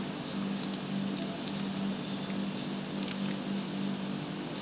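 Steady low background hum with a few faint, sharp computer-mouse clicks scattered through it.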